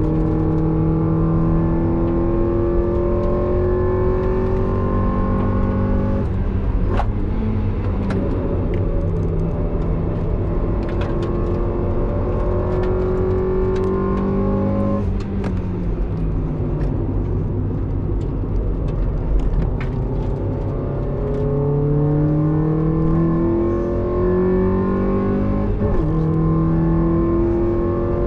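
Mazda NB Roadster's four-cylinder engine, heard from inside the cabin while being driven hard on track. Its pitch climbs steadily with the revs, drops sharply about six seconds in and again at about fifteen seconds, then falls for a few seconds before climbing again near the end.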